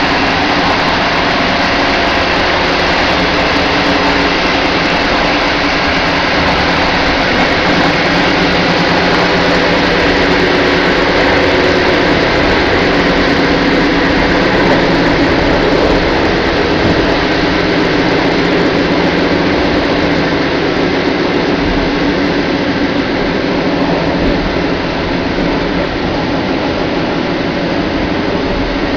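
Steady running noise of a passenger train at speed, heard from inside its last carriage: rolling rumble and hiss with a faint hum, easing slightly in level in the last third.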